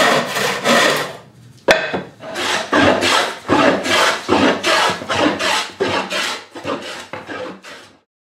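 Hand saw cutting wood in quick back-and-forth strokes, about two a second. There is a short pause and a single sharp knock about two seconds in, then the strokes resume.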